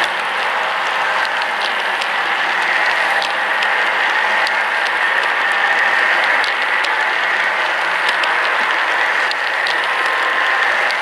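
Model freight train's hopper cars rolling past close by: a steady rushing rattle of metal wheels on the track, with scattered sharp clicks from the wheels and couplers.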